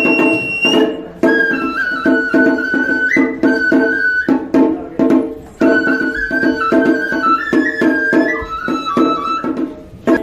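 Traditional Japanese New Year festival music: a flute plays a stepwise melody of held notes over a quick, steady percussion beat.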